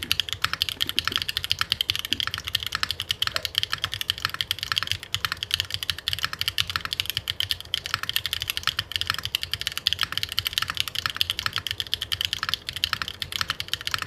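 Continuous fast typing on a Mode Tempo mechanical keyboard prototype with a copper plate, Mode Obscura switches and Mode Obscura keycaps: a dense stream of many keystrokes a second. The copper plate gives the typing more depth than an aluminium plate would.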